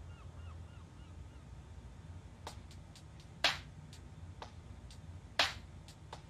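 Several sharp clicks over a low steady hum, the two loudest about two seconds apart. Faint short chirps come in the first second.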